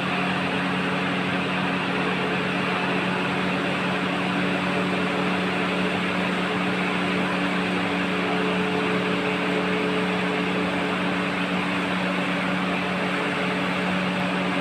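Steady mechanical hum over a rushing-air noise, with a few steady low tones and no change throughout, like a large fan or blower running.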